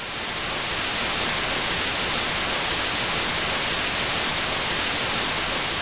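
Even static hiss of white noise that fades in at the start and out near the end, like a TV-static transition effect.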